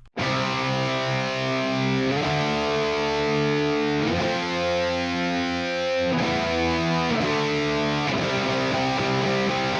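High-gain distorted electric guitar through the ML Sound Lab ML800 plugin, a Marshall JCM800-style amp simulator, on its 'modern rock' preset. It starts abruptly and plays sustained, ringing chords that change every second or two, with the gain up full and the guitar soloed without other processing.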